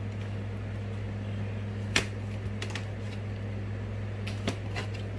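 A knife cutting through skinless sausages and knocking on the cutting board a few times, the sharpest knock about two seconds in, over a steady low hum.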